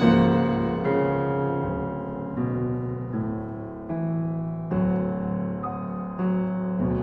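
Piano playing slow chords in a classical violin sonata, each struck and left ringing to fade, about six in turn.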